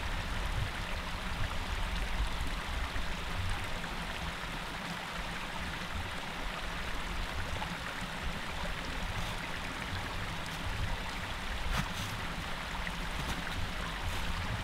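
Small mountain stream running over stones, a steady rush of water, with a few faint clicks late on.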